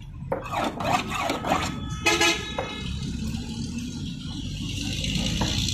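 Street traffic with vehicle horns honking, heard as a short burst of toots and sharp clatters in the first half, then a steady hum of traffic.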